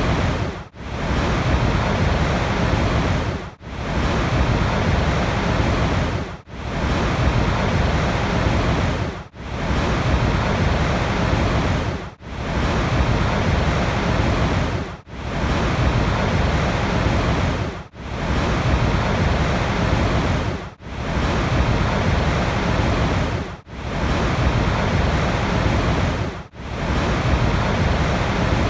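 Steady rushing water, an even hiss heaviest in the low end, with a sharp brief dropout about every three seconds.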